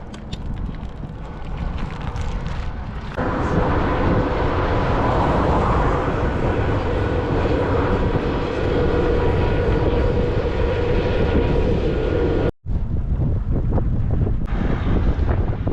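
Strong wind buffeting the microphone on a bicycle ridden into a headwind. About three seconds in, a steady droning hum joins the wind, with a sharp break near the end.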